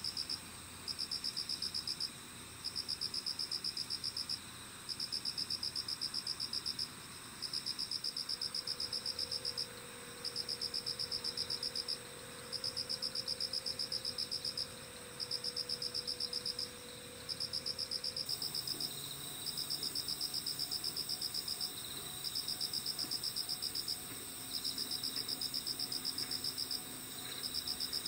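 Insects singing on a summer night: one repeats high, rapidly pulsed trills of about one and a half to two seconds with short breaks between them, over another's steady, continuous high-pitched buzz.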